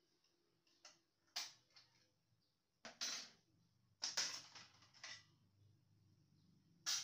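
Hard clicks and short scrapes of a laser printer's parts being handled and pried during disassembly: about six separate knocks in seven seconds, the loudest about a second and a half in and near the end.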